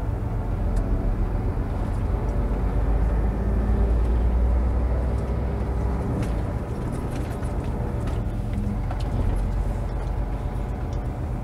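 Scania lorry's diesel engine running as the truck drives slowly along a road, a steady low rumble that swells a little about four to five seconds in.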